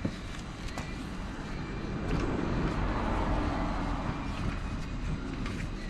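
A vehicle passing by: a steady rush that swells about two seconds in and eases near the end, with a few light clicks.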